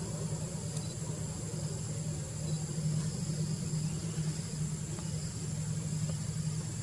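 A steady low mechanical hum runs without change, while insects trill on a steady high note above it.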